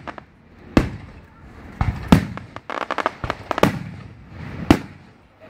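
Aerial fireworks shells bursting overhead in quick succession: a series of sharp bangs, roughly one a second, each with an echoing tail, and a run of rapid crackles in the middle.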